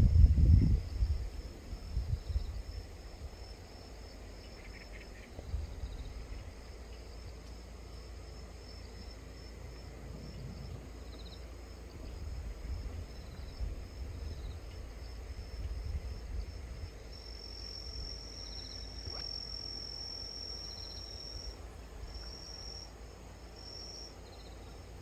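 Insects trilling outdoors: a steady high-pitched pulsing chirr that swells louder for a few seconds past the middle and then comes in two short bursts near the end. Low rumble from wind or handling of the microphone sits underneath, loudest in the first second or two.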